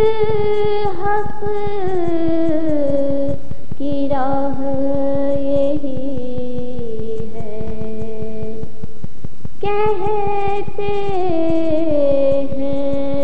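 A voice singing an Urdu devotional nazm in slow, long-held notes that slide from pitch to pitch, with short breaks about three and a half and nine and a half seconds in.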